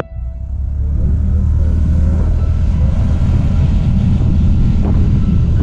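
TVS Jupiter scooter's single-cylinder engine running under way, with heavy wind noise on the microphone. The sound drops out abruptly at the start and builds back up within the first second.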